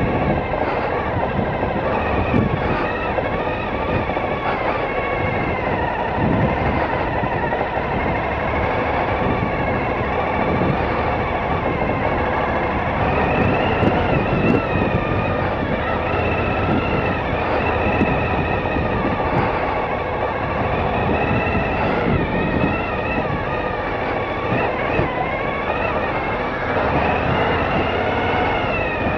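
Adventure motorcycle engine running at low speed, its pitch rising and falling gently as the throttle changes.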